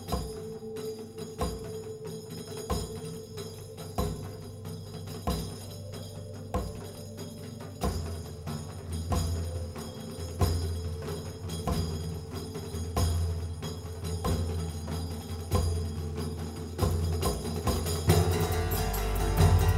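Live ensemble of frame drum, tabla and Uyghur setar playing. Hand-drum strikes keep a slow, even pulse, a sustained low tone joins about eight seconds in, and the music grows fuller and louder near the end.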